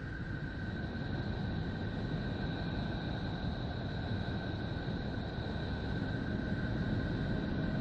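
Space-sound drone given as NASA Voyager's recording of Neptune, a sonification of spacecraft data: a steady low rumble with two steady high tones held above it, slowly growing a little louder.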